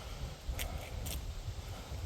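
Footsteps walking through dry overgrown grass and brush, with two brief crackling swishes about half a second and a second in, over a low uneven rumble on the phone's microphone.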